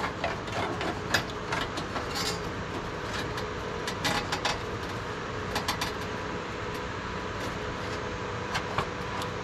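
Power cables being routed and plugged into a computer motherboard: scattered sharp plastic clicks and rustles over a steady hiss with a faint whine.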